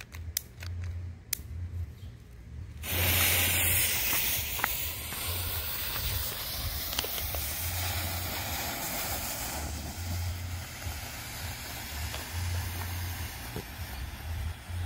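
A few clicks of a long-nosed utility lighter, then about three seconds in a smoke bomb catches with a sudden loud hiss. It goes on hissing steadily as it pours out yellow smoke, easing off a little near the end.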